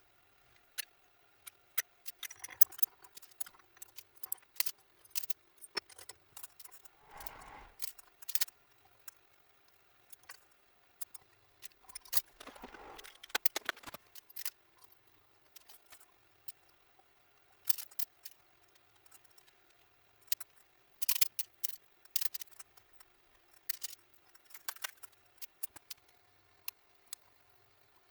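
Irregular metallic clicks and clinks, with a few short scraping stretches, of small metal parts and hand tools being handled and fitted together on a workbench.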